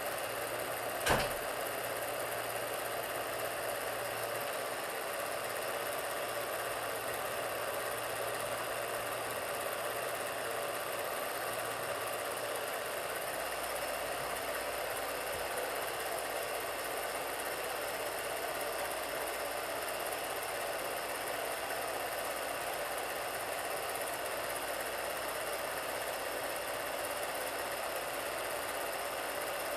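Film projector running with a steady mechanical whirr and clatter, with one sharp click about a second in.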